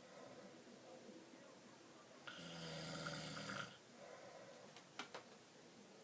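A man snoring in his sleep: one long snore a little over a second long, starting about two seconds in, with softer breathing before it. Two short clicks follow about five seconds in.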